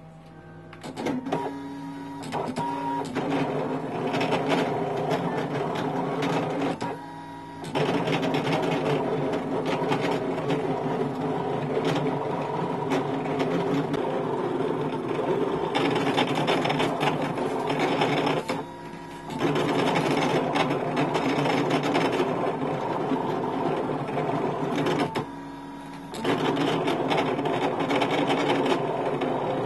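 Brother ScanNCut cutting machine at work: its motors whir as the blade carriage and rollers move, cutting out a sheet of stickers. It starts about a second in and pauses briefly three times.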